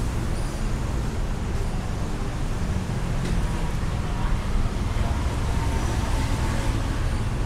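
City street ambience: a steady low rumble of traffic with faint voices of people passing.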